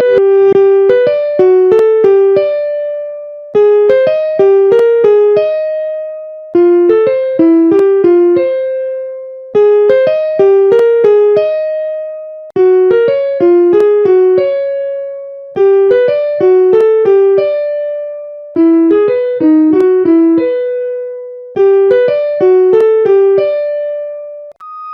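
Electric piano playing a short looping melody: a run of quick notes ending on a held note, repeated about every three seconds, with the held note alternating between two pitches.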